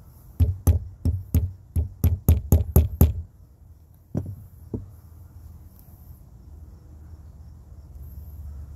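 Hammer strikes on a leatherworking tool: a run of about ten sharp knocks over two and a half seconds, coming a little faster towards the end, then two more single knocks.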